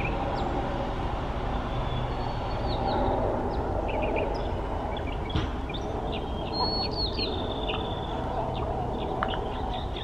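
Mockingbird singing: a string of short, varied chirps and whistled phrases, each one a different pattern, over a steady low background rumble.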